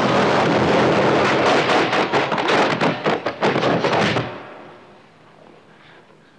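A rapid, dense run of sharp cracks and bangs over a loud hiss, cutting off abruptly about four seconds in and leaving it much quieter.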